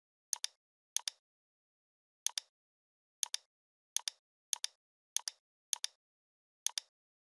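Computer mouse button clicked nine times at an uneven pace, each click a quick double tick of press and release, with dead silence between.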